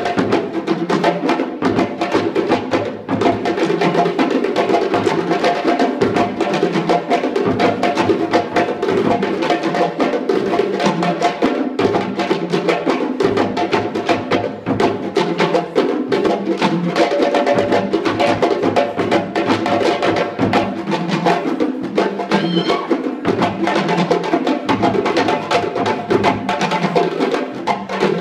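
West African drum ensemble of djembes and dunun drums playing a steady, dense rhythm.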